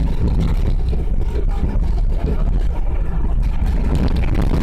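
Train running with a steady, loud low rumble.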